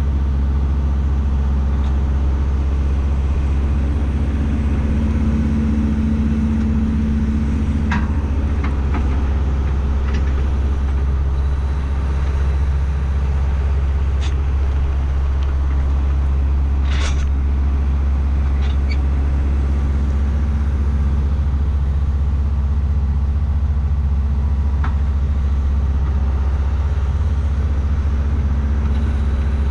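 Tractor engine running steadily at constant speed under load, with a few brief clanks and rattles, the loudest about halfway through.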